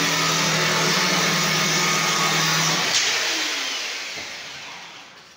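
Electric jigsaw cutting a wooden baseboard, its motor running steadily, then switched off about three seconds in with a click and winding down.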